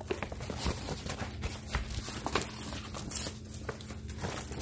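Irregular light knocks and clicks, with a steady low hum beneath.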